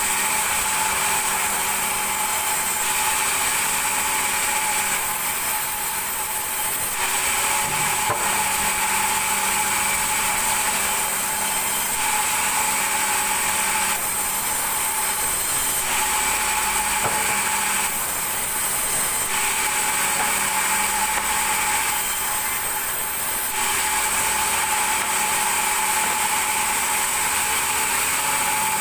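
Large vertical sawmill band saw running with a steady high whine while its blade rips a thick wooden slab; the cutting noise eases off briefly a few times as the slab is fed and repositioned.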